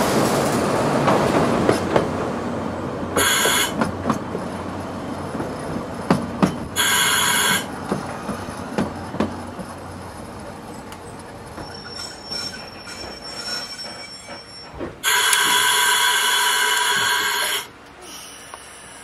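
Ikawa Line train running on the rails, with sharp clicks from the wheels and a steady rolling rumble. Three times the wheels squeal high and shrill, briefly about 3 and 7 seconds in and for a couple of seconds near the end. The sound drops away suddenly just before the end.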